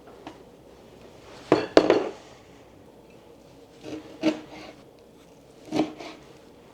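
Kitchenware clattering: short knocks of dishes and utensils being handled and set down on a counter, with a double knock about two seconds in the loudest and a few lighter knocks after it.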